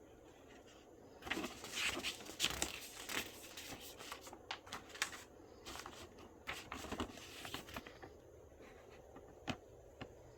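Packaging being handled during an unboxing: a stretch of crinkling and rustling, then a few separate clicks and taps near the end.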